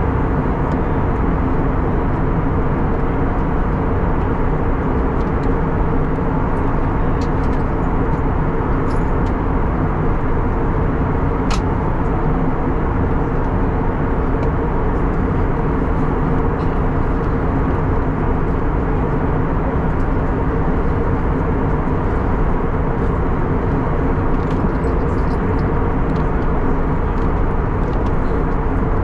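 Steady cabin noise inside an Airbus A321neo in descent: engine and rushing airflow blended into an even drone with a low steady hum.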